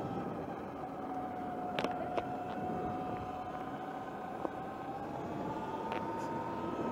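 Sur Ron electric dirt bike riding on gravel: a steady whine from its electric drive, rising a little in pitch near the end, over tyre noise on the gravel, with a few sharp clicks.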